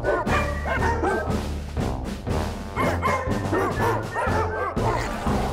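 A dog barking over and over in short barks, over background music with steady low bass notes.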